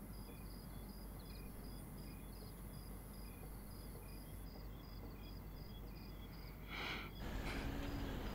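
Crickets chirping steadily, about three short high chirps a second. About seven seconds in a brief whoosh swells, and steady rain takes over.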